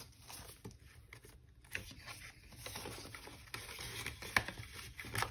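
Faint rustling of paper cash envelopes and banknotes being handled, with a few light taps and clicks.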